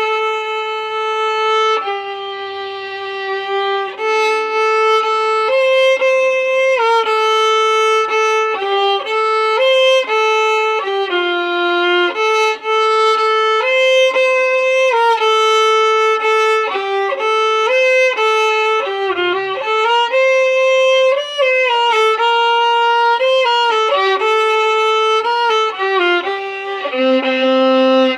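Violin playing a melody of held notes that move step by step, with occasional two-note chords.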